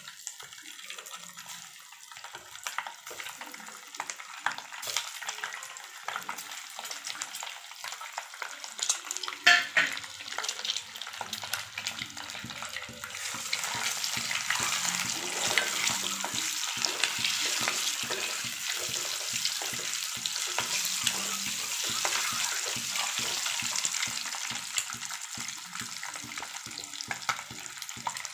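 Hard-boiled eggs frying in hot oil in a pan: steady sizzling and crackling that gets louder about halfway through, with one loud knock about a third of the way in.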